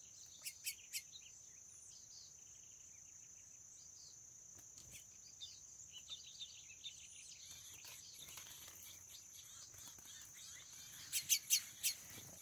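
Steady high-pitched drone of insects, with faint bird twittering. Three short sharp chirps come about half a second in, and a quick run of four or five louder ones comes near the end.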